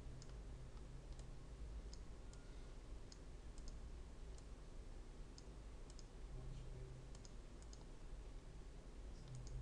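Faint computer mouse clicks, about a dozen scattered irregularly, over a low steady hum.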